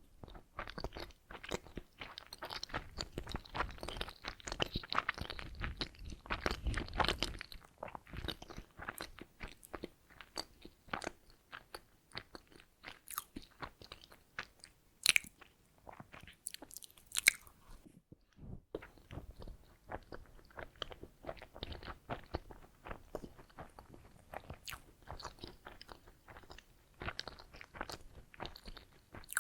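Close-miked chewing of donuts, a steady run of small moist clicks and squelches, densest and loudest over the first seven seconds or so, then sparser, with two sharp, bright clicks around the middle.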